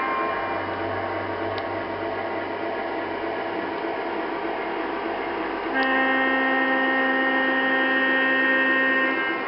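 Model freight train rolling on track with a steady rumble and hum; about six seconds in, the Lionel RS-11 diesel locomotive's sound system gives one long multi-tone horn blast, held for about three seconds before cutting off.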